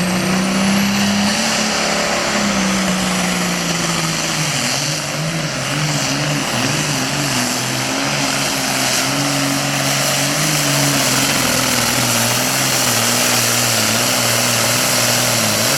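Super Farm pulling tractor's diesel engine running flat out under load as it drags the weight sled. The engine note sags a little after the first couple of seconds, holds with slight wavering, and drops off sharply at the very end as the run finishes.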